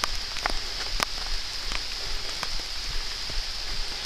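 Mountain bike rolling along a dirt singletrack: a steady hiss with scattered clicks and rattles from the tyres and bike over the trail.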